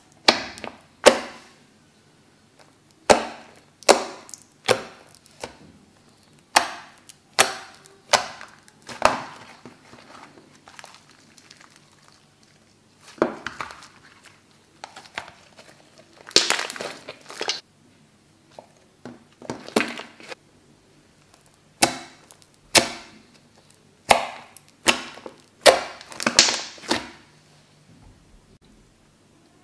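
Fluffy dish-soap slime being poked, pressed and stretched by hand: a long series of sharp wet pops and clicks, single or in quick clusters, with a few longer crackling stretches.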